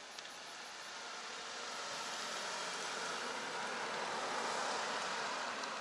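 A car driving past, its noise swelling to a peak about four and a half seconds in and then fading.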